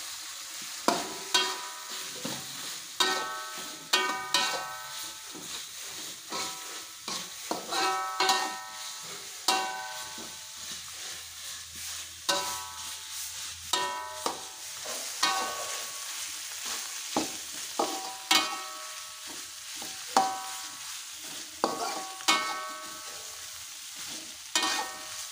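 A metal spatula scraping and knocking against an aluminium wok while stirring fried fish into sizzling chilli paste; the knocks come at irregular moments and each one rings briefly, over a steady frying hiss.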